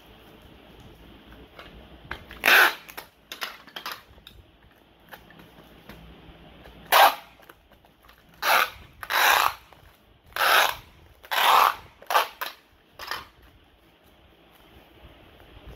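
Packing tape being pulled off the roll of a handheld tape dispenser in about ten short, loud pulls, each half a second or less. The first comes about two and a half seconds in, and most fall in a quick run through the second half.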